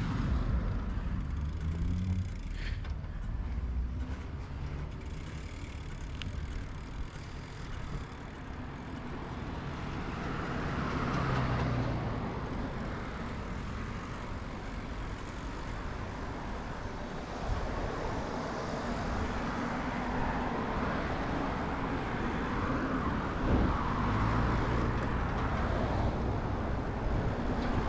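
Road traffic passing, with steady low rumble and rolling noise heard from a mountain bike being ridden along town streets. A couple of swells mark vehicles going by.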